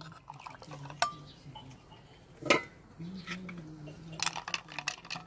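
Ice cubes and a spoon clinking in a glass jug of sharbat: two single clinks, about a second and two and a half seconds in, then rapid clinking from about four seconds on as the spoon stirs the ice.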